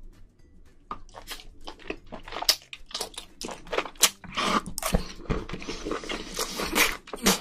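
Close-miked eating of spicy braised seafood (haemul-jjim): a dense run of crisp crunches and chewing that starts about a second in and grows thicker toward the end.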